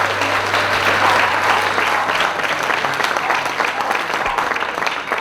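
Audience applauding and clapping after a song, fading slightly near the end.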